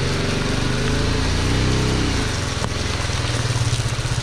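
BMW G310GS's single-cylinder engine as the motorcycle slows to a stop, its pitch falling over the first couple of seconds, then settling into a steady idle.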